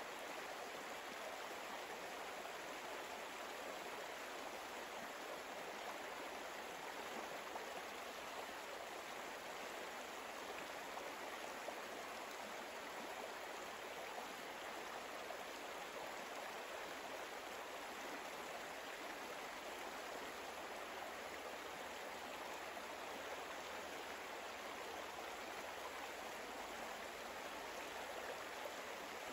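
Steady rush of running water, like a stream, laid under the meditation as an even background ambience with no breaks.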